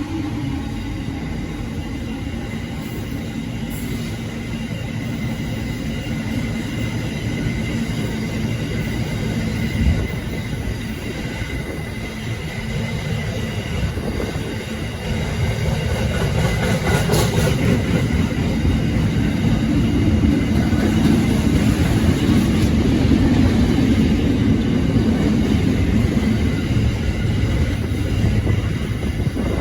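Freight train running past, a continuous rumble of wheels on rail with thin high-pitched tones above it; it grows louder about halfway through.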